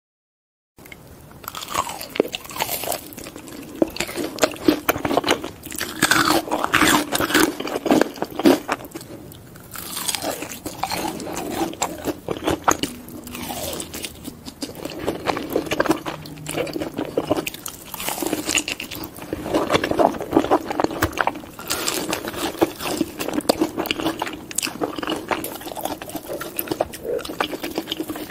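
Close-miked eating sounds: crisp, loud crunches and chewing as Hot Cheetos-coated crab legs and cheese sticks are bitten into. They start about a second in.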